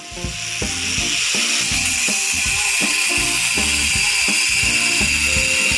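A steady, high hissing whir from a workshop tool, heard over background music with plucked notes.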